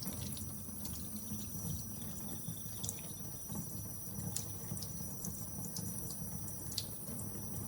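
Tap water running through a removed GE Café series dishwasher upper spray arm: a steady low rush with scattered light ticks. The water is being run through the arm to test which nozzles spray and which are blocked.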